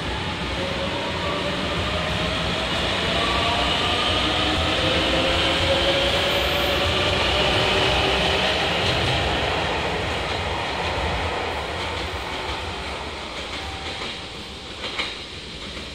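JR Shikoku 8000 series electric train pulling away past the platform: its motor whine rises in pitch as it picks up speed over the rumble of the wheels, then fades as it leaves. A sharp click comes near the end.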